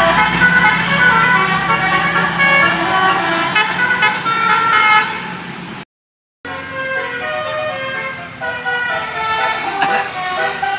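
Bus telolet (Basuri) musical horn playing a tune of many short, changing horn notes. The sound cuts off dead for about half a second a little after halfway, then the horn melody starts up again.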